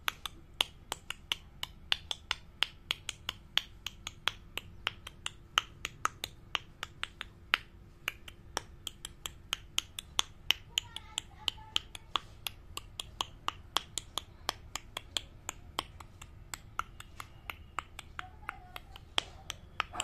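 Rapid, fairly regular sharp clicking, about four to five clicks a second, kept up steadily.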